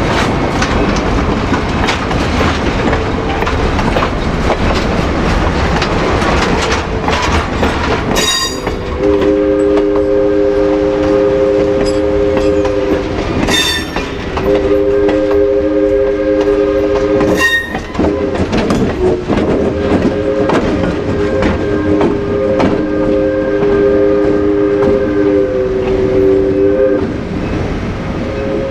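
Train rolling with its wheels clicking over the rail joints. About nine seconds in, a diesel locomotive's horn starts sounding a three-note chord in several long blasts, which end shortly before the close.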